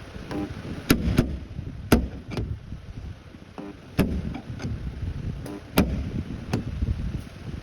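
Irregular sharp knocks, about eight of them a few tenths of a second to a second and a half apart, some with a short ring, over a low rumble: tools striking metal while a dent is worked out.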